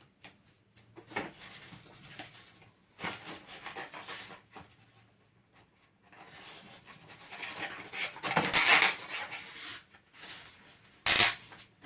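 Hands working foam pipe insulation and a plastic condensate drain tube: irregular rustling and rubbing, with the longest and loudest stretch past the middle and a short sharp scrape near the end.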